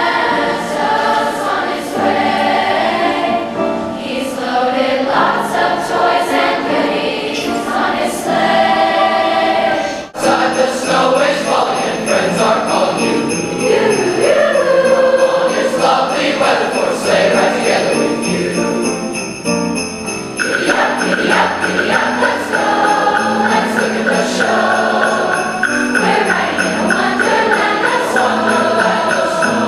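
Junior high school choir singing a Christmas song. After a brief break about ten seconds in, the singing goes on with jingle bells ringing steadily along with it.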